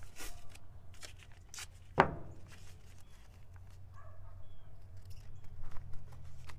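Blue painter's tape being handled, torn and pressed onto a plastic headlight lens: a scatter of small crackles and clicks, with one sharp knock about two seconds in.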